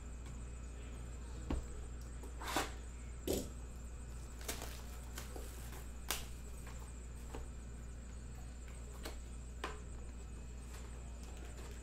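Plastic shrink-wrap being torn and crinkled off a sealed trading-card box, and the cardboard box opened: scattered short rustles and snaps, loudest in the first few seconds.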